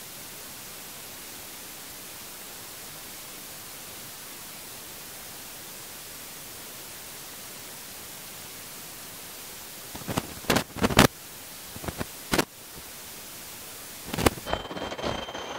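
Steady, even hiss. About ten seconds in come a handful of sharp cracks or knocks, and near the end the hiss gives way to busier rustling and clattering.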